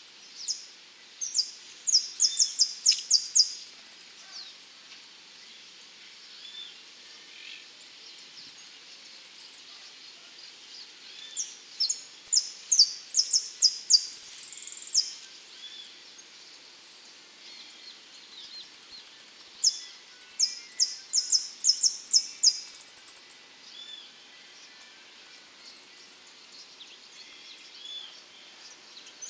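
Saffron finch singing: three bouts of quick, sharp, repeated chirps, about a second in, around eleven seconds in and around nineteen seconds in, with short high thin trills between them.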